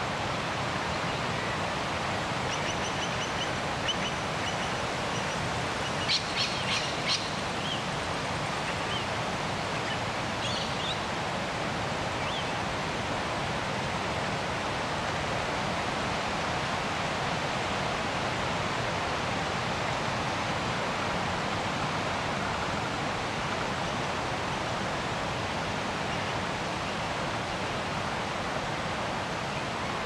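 Steady rushing outdoor ambience with birds calling over it. A held, level whistled note comes a few seconds in, then a short burst of sharp, loud calls about six seconds in, and a few brief calls after that.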